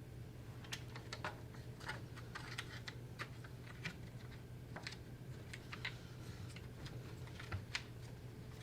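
Irregular light clicks and taps of small parts being handled: a main circuit board being fitted into the slots of a framing nailer's plastic housing, over a faint steady hum.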